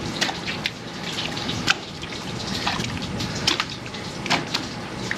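Wet raw alligator gar fillets being handled and laid out on a metal cleaning table: irregular wet slaps and squelches, several short ones spread through.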